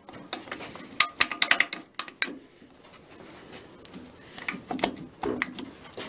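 Metal clicks and clinks as a VW starter motor is seated into the transaxle case and a nut is started on its mounting stud. A quick run of sharp clicks comes about a second in, and a few softer knocks follow near the end.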